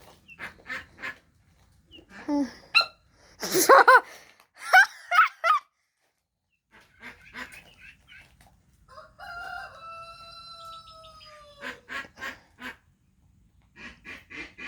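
A chicken calling and sneezing: short sharp sneezes scattered through, with the loudest call about four seconds in and one long, slightly falling call in the middle.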